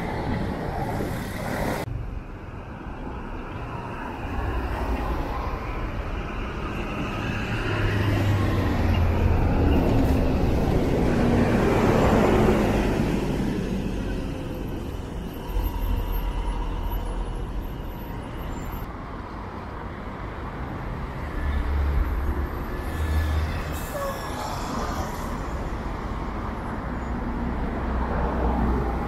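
City buses running in a bus corridor, their engines rumbling as they pull in and move off at the stop, over steady road traffic. It is loudest a little under halfway through, as a bus passes close.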